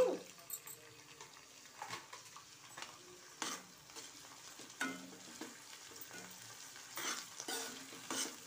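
A spatula stirring and scraping through chopped onions and greens frying in oil in a kadai, with a soft sizzle. A scrape comes every second or two.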